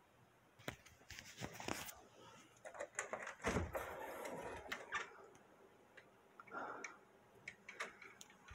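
Handling and movement noise: an irregular run of clicks and knocks, loudest at a heavy thump about three and a half seconds in, as the phone is picked up and carried through the room.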